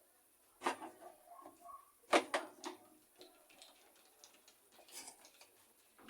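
Screwdriver and hands working the washing machine's plastic trim clips: a few sharp clicks and knocks of metal and hard plastic, the loudest about two seconds in.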